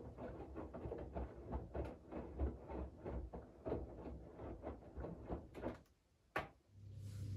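Siemens iQ700 WG56B2090 front-loading washing machine, laundry tumbling in the drum with a run of soft thuds and swishes that stops about six seconds in. A single click follows, then a steady low hum starts near the end as water begins to run.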